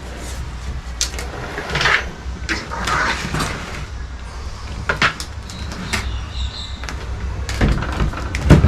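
Scattered clunks, knocks and scrapes of the scooter and its newly repaired centre stand being handled and tipped onto the stand, over a steady low rumble.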